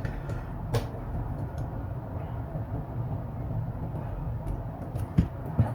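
A few short sharp clicks and knocks, as from handling parts or tools, over a steady low background rumble.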